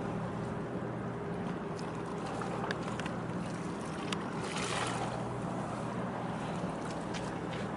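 Low steady hum of ship engines carried over the harbour water from a harbour tug and tanker under way, under a hiss of wind and water noise. A brief swell of rushing noise about halfway through, and a few faint clicks.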